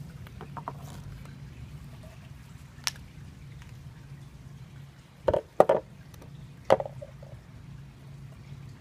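Handling knocks as the guitar is turned over and moved: a single sharp tap about three seconds in, a quick cluster of knocks a little past halfway, and another knock shortly after, over a steady low hum.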